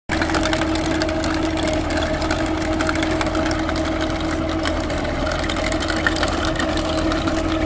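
Sonalika tractor's diesel engine running steadily under load, driving a chain trencher that cuts through sandy soil with a constant dense clatter. A steady hum runs through it.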